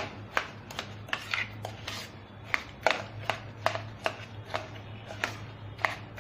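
A spoon beating a chilled fruit ice-cream mixture in a stainless-steel bowl, clinking against the metal about twice a second at an uneven pace, over a low steady hum.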